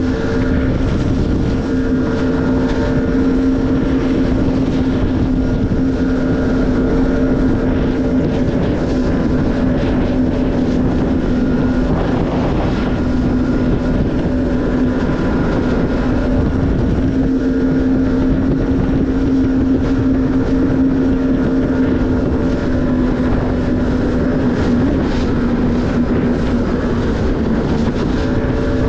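Jet ski engine running at a steady cruising speed, its pitch holding nearly constant, over a rush of wind and water noise.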